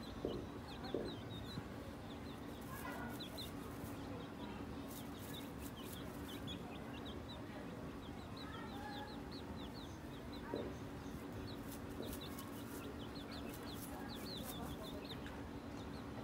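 Mother hen clucking low a few times while her chicks peep again and again in short, high, falling chirps, over a steady low hum.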